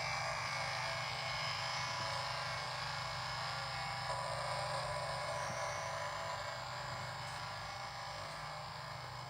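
A steady, dark drone with a rapid low flutter underneath, holding evenly throughout and easing slightly near the end.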